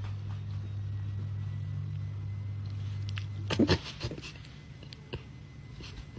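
A cat purring steadily close up, broken about three and a half seconds in by a short, loud cat cry, then a few soft rustles and clicks.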